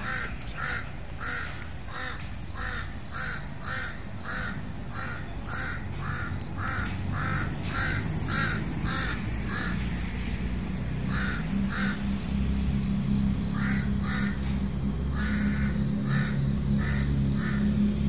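A bird calling in a long run of short, evenly repeated calls, about two a second, which thin out to scattered pairs after about ten seconds. A low steady hum comes in under it during the second half.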